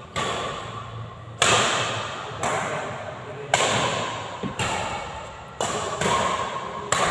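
Badminton rackets striking a shuttlecock in a rally: about seven sharp smacks, roughly one a second, each ringing out in the hall's echo.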